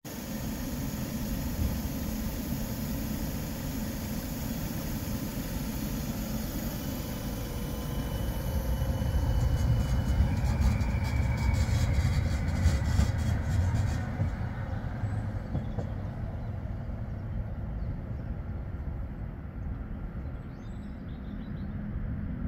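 Tram running on its rails: a steady low rumble with a faint motor whine. It grows louder about ten seconds in, with a spell of light rattling clicks, then eases off.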